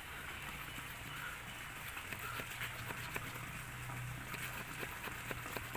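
The small folding wood saw of a Victorinox Huntsman pocket knife working through a thick jamun branch, a rasp of strokes with many scattered sharp clicks as the teeth catch in the kerf.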